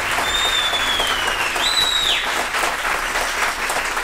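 Live theatre audience applauding at the end of a recited poem. Two high, drawn-out tones sound over the clapping in the first half.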